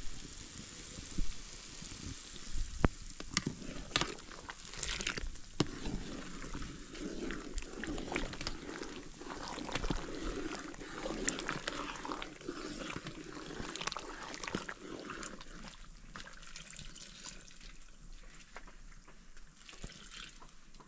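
Liquid trickling and splashing, with a few sharp knocks in the first few seconds.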